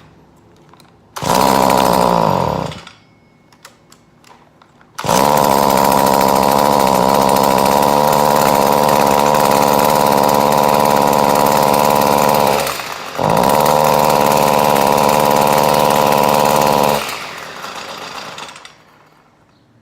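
Stihl FS-55R two-stroke string trimmer engine running: it fires briefly and dies away about a second and a half later, then starts again and runs steadily for about twelve seconds with a short stumble partway through before winding down. The trimmer is running poorly, traced to a clogged exhaust screen fitting.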